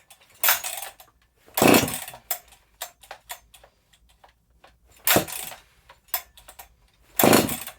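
Husqvarna 268XP two-stroke chainsaw being pull-started: four sharp yanks of the recoil starter, each a short whirr of the engine cranking over that does not fire, with small clicks and rattles between pulls. The choke is on and the carburettor is still drawing fuel through from a bone-dry tank, so it does not catch.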